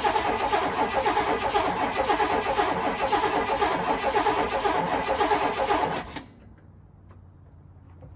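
Starter motor cranking the Chevy Tahoe's V8 in a steady, even rhythm for about seven seconds without the engine catching, then cutting off suddenly about six seconds in: a crank-no-start.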